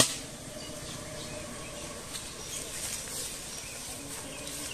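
Small birds chirping in short high calls over a steady rural outdoor background, with a sharp click at the very start.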